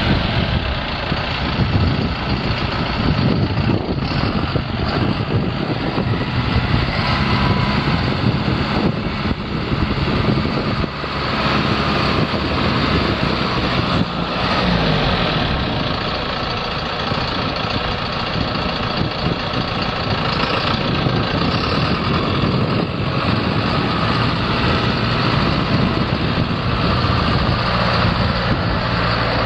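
The 4.5-litre four-cylinder diesel engine of a 2008 John Deere 6430 tractor, running steadily at an even level.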